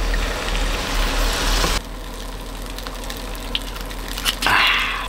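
Wine poured into a hot frying pan of mince on an induction hob, sizzling loudly for nearly two seconds and cutting off when the pour stops, then a quieter simmer over a steady low hum. A short burst of noise comes near the end.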